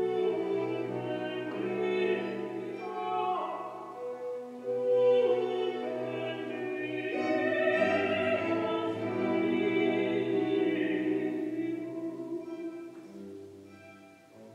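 Classical sacred vocal music: operatic singing with vibrato over orchestral accompaniment, fading down near the end.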